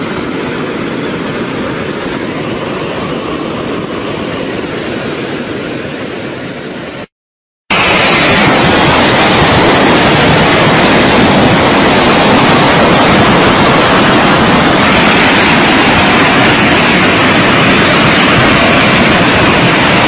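Muddy debris flow rushing down a channel, a steady rushing of water and rock. After a half-second gap of silence about seven seconds in, a much louder, even rushing noise takes over for the rest of the time.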